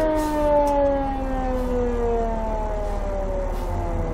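Fire truck siren winding down, one pitch sliding slowly and steadily lower, over the low rumble of the truck's engine as it comes to a stop at the scene.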